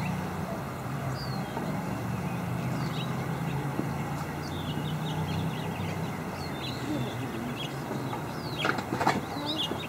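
Outdoor evening ambience: a steady low hum under many small, scattered bird chirps, with a louder burst of calls near the end.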